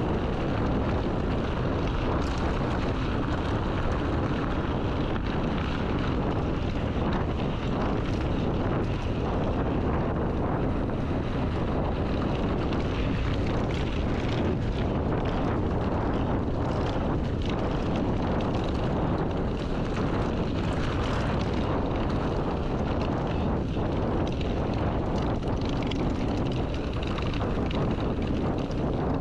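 Steady wind noise buffeting a handlebar-mounted action camera's microphone as an electric mountain bike is ridden, with tyre rumble and small rattles of the bike over a rough track.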